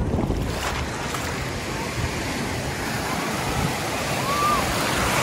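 Sea waves washing onto a beach: a steady rushing hiss, with faint voices.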